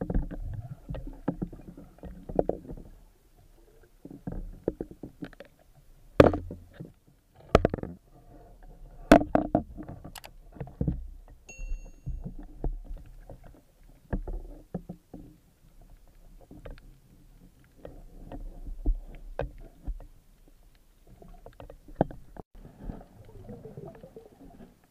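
Dull knocks, sharp clicks and water noise picked up underwater by the camera's housing while the speargun is handled among the rocks, coming irregularly, with the loudest clicks between about six and eleven seconds in. A short electronic chime sounds about eleven and a half seconds in.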